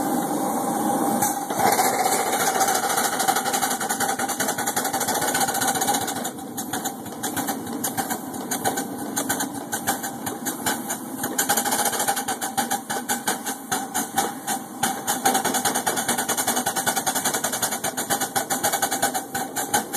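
Miniature live-steam locomotive running along the track: a steady hiss of steam, with a rapid, even ticking beat from about six seconds in.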